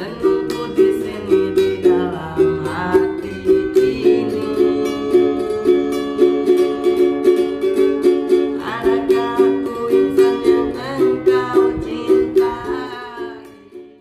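Instrumental background music with plucked strings: a fast, evenly repeating pattern of picked notes under a bright melody, fading out near the end.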